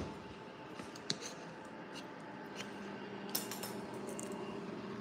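Light clicks and taps of a plastic oil bottle and a stainless steel pan being handled at the counter, with a sharper click about a second in and a short noisier burst a little after three seconds, over a faint steady hum.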